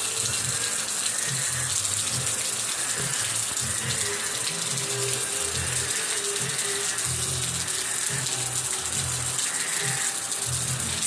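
Steady rush of heavy monsoon rain and running floodwater, with an uneven low hum coming and going underneath.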